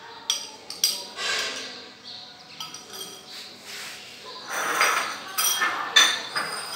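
Glass bowls clinking and knocking against each other as chopped cabbage is shaken out of a small glass bowl into a large glass mixing bowl, with a rustling scrape of the food. Near the end come a few sharp clinks with a short ring, as glass dishes are set down and picked up.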